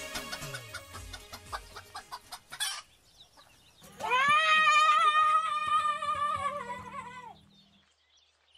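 Soundtrack music dies away over the first few seconds, then a rooster crows once, a long call that rises at the start and falls away at the end.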